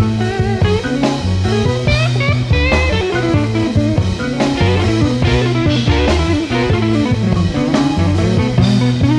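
Background music: a blues-rock band with electric guitar, bass and drum kit keeping a steady beat.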